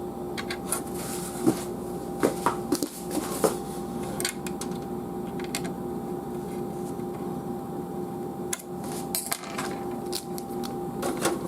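Scattered small clicks, taps and clinks of metal screws, tools and computer parts being handled against a PC case, over a steady low hum.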